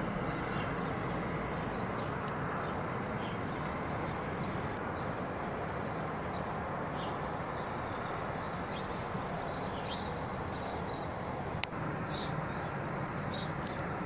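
Outdoor ambience: a steady low rumble with scattered short, high chirps of small birds, and one sharp click about twelve seconds in.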